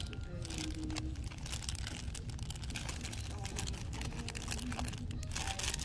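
Clear plastic packaging crinkling and rustling as hanging packets of fabric drawstring bags are flipped through by hand, over a low steady hum.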